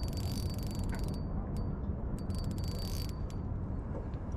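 Fishing reel clicking rapidly in two spells as a fish is fought, over a steady low rumble.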